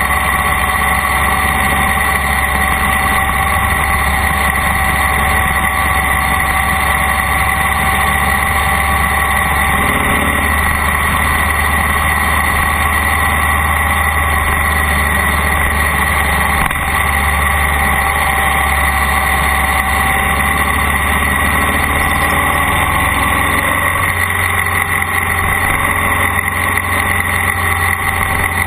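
A vehicle engine running steadily with a constant hum, heard on a ride.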